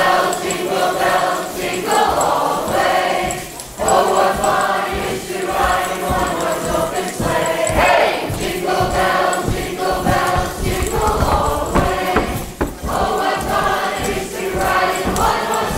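A group of voices singing a Christmas carol together, phrase after phrase with short breaks between.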